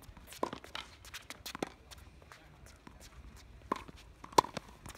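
Tennis rally on a hard court: several sharp pops of the ball hit off racket strings and bouncing on the court, coming in irregular pairs a fraction of a second to a second apart.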